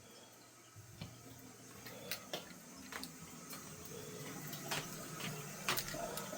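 Faint hiss of a toilet cistern refilling through a failing fill valve, growing gradually louder, with scattered light clicks.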